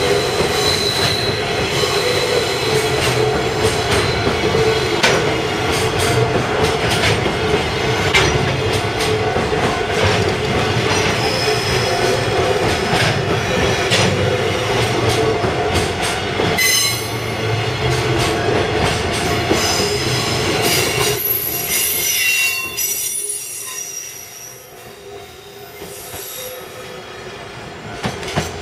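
Freight train of Koki container flatcars rolling past at close range, wheels clattering over rail joints with a high wheel squeal at times. About three-quarters of the way through the noise drops away as the last wagon passes and the train moves off.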